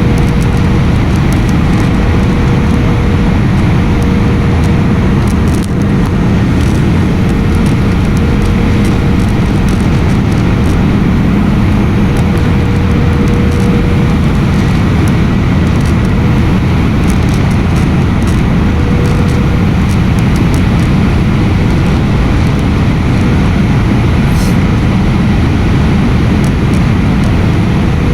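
Steady, loud airliner cabin noise from the jet engines and airflow, with a faint steady hum that fades in and out.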